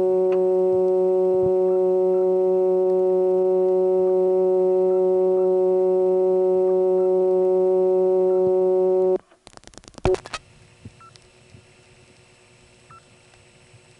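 Buzzy, harmonic-rich dial tone from an old XY step-by-step telephone exchange, held steady while the dialed digits are absorbed. It cuts off about nine seconds in and is followed by a quick run of rotary dial-pulse clicks, then faint hissy line noise with small switching clicks.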